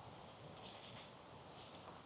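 A footstep on a wet forest path, a short soft crunch about two-thirds of a second in, with a fainter step near the end, over a quiet forest background.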